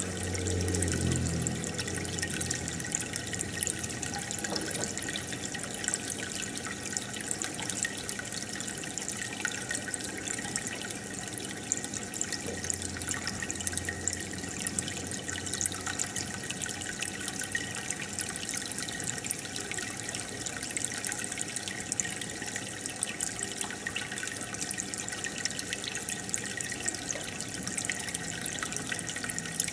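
Aquarium aeration bubbling steadily: a stream of air bubbles rising and breaking at the water surface, with a fine continuous patter and a deeper gurgle now and then.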